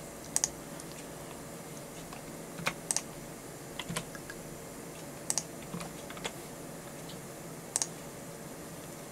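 Computer keyboard keys clicking now and then, single taps and quick pairs a second or two apart, over a steady low hum.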